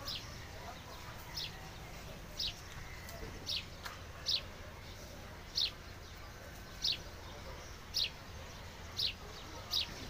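A bird calling over and over: a short, high, down-slurred chirp about once a second, spaced a little unevenly, over a steady low hum.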